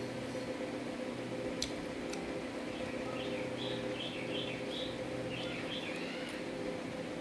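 A small bird chirping a quick run of short high notes from about three seconds in, over a steady low hum, with a few faint clicks.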